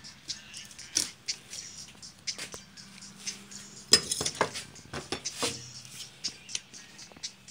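Irregular clicks and clinks of hard tools and small metal objects being handled among the clutter of a workbench, loudest about four seconds in and again about five and a half seconds in. A faint steady low hum runs underneath.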